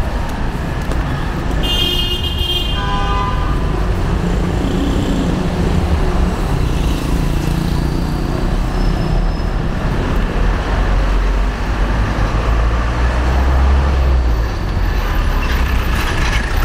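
Street traffic: vehicle engines running steadily, with a short pitched horn toot about two seconds in, followed by a second, lower one. The low engine rumble swells louder a little before the end as a heavier vehicle passes.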